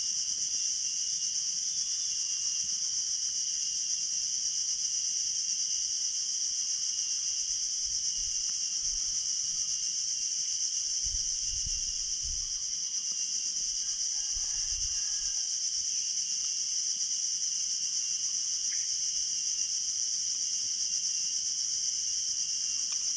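Steady high-pitched insect chorus droning without a break, with a few faint low bumps about halfway through.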